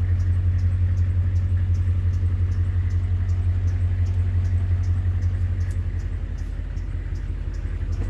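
Bus engine idling steadily with a low, even drone, and a faint light ticking about three times a second over it.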